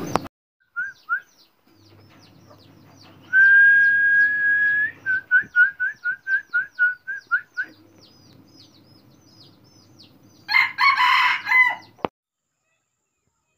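A decoy junglefowl rooster crows once near the end, a loud rough call about a second and a half long that cuts off abruptly. Before it, small birds chirp repeatedly and give a whistled call, one long steady note followed by a quick run of short notes.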